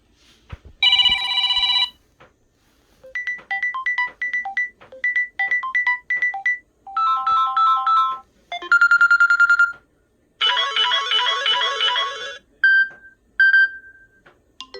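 Samsung Galaxy A21s ringtones playing one after another: about six different short electronic melodies, each cut off after one to three seconds, with brief gaps between them.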